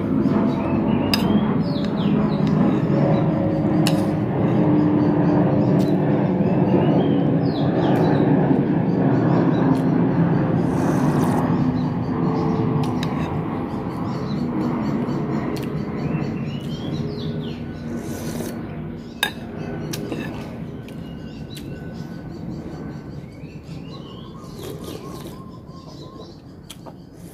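Long low rumble of a large passing vehicle, its pitch drifting slowly down as it fades away. Faint bird chirps and a few metal spoon clinks against a glass bowl sound over it.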